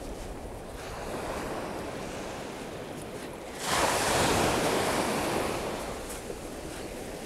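Small waves breaking on a sandy beach. A bigger wave crashes about halfway through and washes out over the next couple of seconds.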